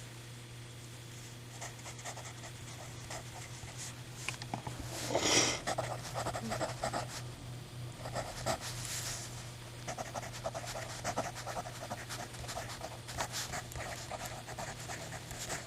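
Vintage Autopoint mechanical pencil with 0.5 mm lead writing on paper, its lead scratching in many short strokes. A loud sniff comes about five seconds in, over a steady low hum.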